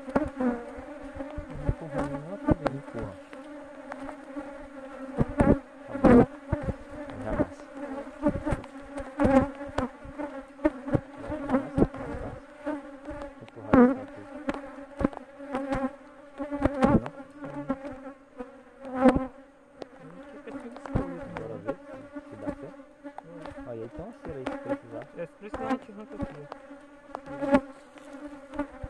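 Honeybees buzzing in flight, a steady hum that swells and fades as bees pass close, with frequent sharp taps and knocks.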